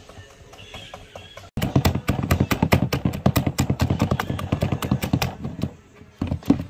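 Rapid, loud run of clicking and scraping from a kitchen utensil working food, starting abruptly about a second and a half in and easing off near the end.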